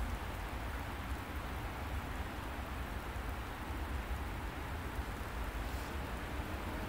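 Steady wind rumble on the microphone with an even hiss behind it, no distinct events.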